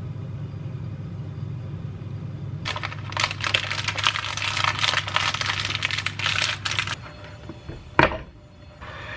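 Flaked almonds sprinkled by hand over oat batter: a quick, dense crackle of light ticks lasting about four seconds, over a low steady hum. One sharp knock near the end.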